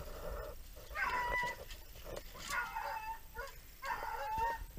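Hunting dogs shut in wire dog boxes on a pickup whining: three drawn-out, high-pitched whines about a second and a half apart.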